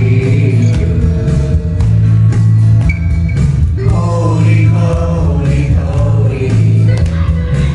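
A young man singing a worship song into a handheld microphone over loud accompanying music with a heavy, steady bass line.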